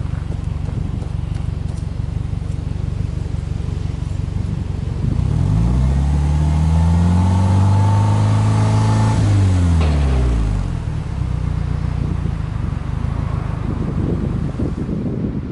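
Subaru Impreza WRX STI's turbocharged flat-four boxer engine idling through its exhaust, then revved once about five seconds in, held up for about three seconds and let fall back to idle.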